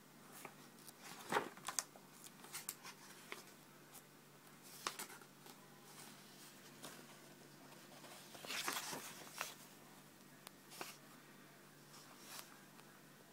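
Pages of a thick book being turned and handled: short paper rustles and soft flaps, with a longer rustle about two-thirds of the way in, over a faint steady hum.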